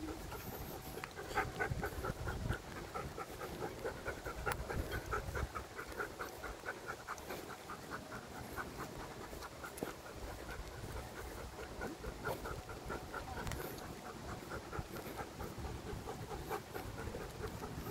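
Dog panting quickly and evenly, about three to four breaths a second, while walking on a leash.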